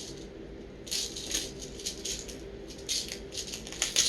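Small plastic cases of tiny craft embellishments being handled and clicked open, the beads and pearl pieces inside rattling in several short bursts.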